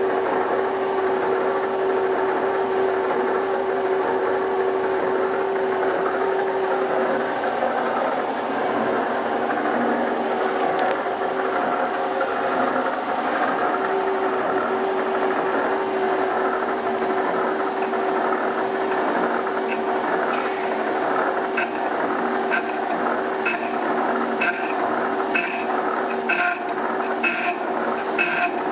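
Oliver Model 600 drill grinder running under power, its motor, grinding head and coolant pump giving a steady hum. From about two-thirds of the way in, a regular scraping tick joins it, repeating a little over once a second.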